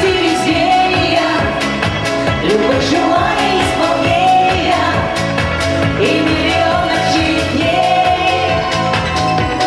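Woman singing live into a handheld microphone over a pop backing track with a steady beat.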